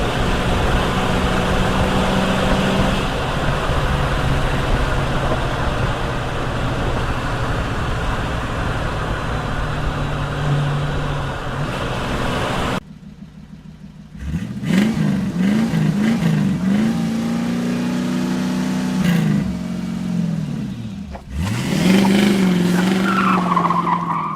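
Ford Mustang engine running steadily under load for about half the time, then after an abrupt cut, revving up and down several times, holding high revs for a few seconds, dropping, and revving again near the end.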